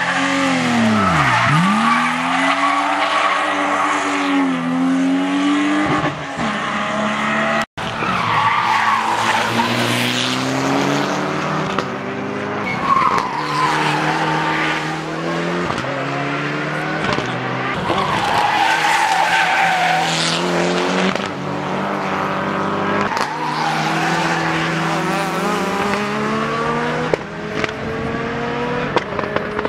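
Rally cars driven hard on a tarmac stage one after another, engines revving with the pitch climbing and dropping through gear changes, and tyres squealing through the corners.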